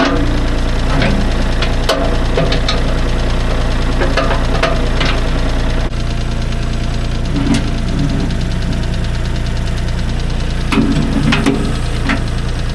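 Compact tractor engine running steadily, with sharp clinks and clanks of a steel chain being hooked onto the front-loader bucket in the first half. After about six seconds the engine keeps running as the loader moves a wooden picnic table chained to the bucket, with a couple of short louder spells.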